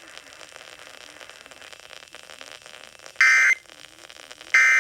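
Radio static hiss, then about three seconds in two short bursts of Emergency Alert System data tones, a harsh warbling digital screech a little over a second apart: the end-of-message code that closes the warning broadcast.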